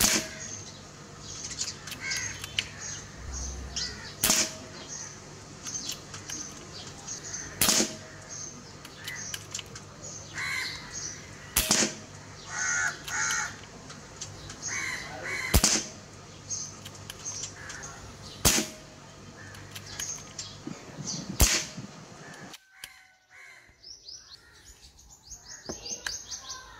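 GM10 PCP air rifle in .177 firing about seven single shots, each a sharp crack, roughly three to four seconds apart.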